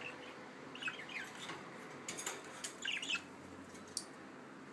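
Budgerigars chirping and squawking in short, scattered calls, with a few sharp clicks.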